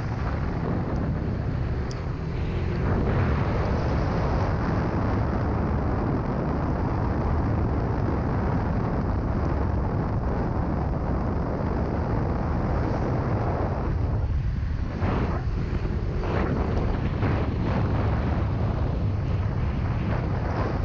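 Steady wind rumble buffeting the microphone on a moving vehicle, with a vehicle running underneath.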